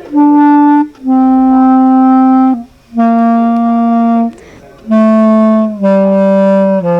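A single wind instrument plays a slow descending scale of about six long held notes, each lower than the one before, with short breaks between notes.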